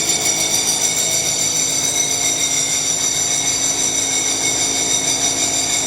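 Steady machinery drone with a high-pitched whine made of several held tones.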